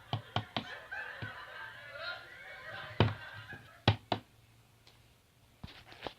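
A series of light, irregular knocks and taps on a hard surface: three quick ones at the start, then single ones spaced out, over faint background laughter that dies away by about three seconds in.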